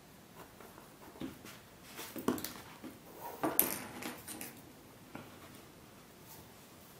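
Leather pieces being handled on a cutting mat: a run of short rustles, scrapes and light knocks as a leather panel is flexed and moved and a round leather base is fitted against it, the loudest two about two and three and a half seconds in.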